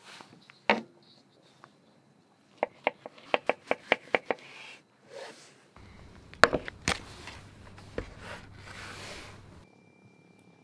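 Kitchen knife slicing a peeled banana into rounds on a wooden cutting board. There is one knock, then a quick run of about eight knocks of the blade on the board, then a few louder cuts.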